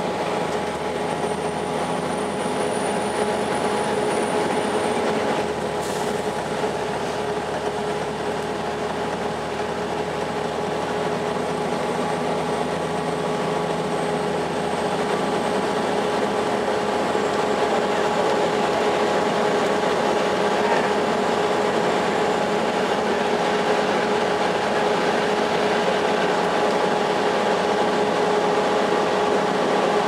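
Inside a 2002 Blue Bird CS transit bus cruising at highway speed: the steady drone of its Cummins ISL9 diesel and Allison B400R automatic transmission mixed with road and tyre noise, with a steady whine running through it. It grows slightly louder in the second half.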